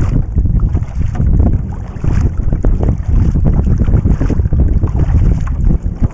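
Wind buffeting the deck-mounted camera's microphone, a heavy low rumble, with a kayak paddle's blades dipping and splashing in the lake water on each stroke.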